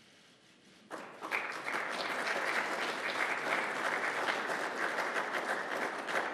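Audience applauding, starting abruptly about a second in and going on steadily.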